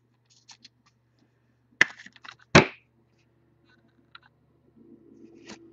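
Handling noise of a trading card being slid into a rigid clear plastic card holder: small ticks, then two sharp plastic clacks about two seconds in, over a faint steady electrical hum.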